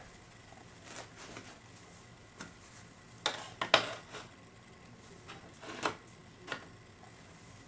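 Irregular clicks and knocks of small hard objects being handled, loudest a little past three and a half seconds in.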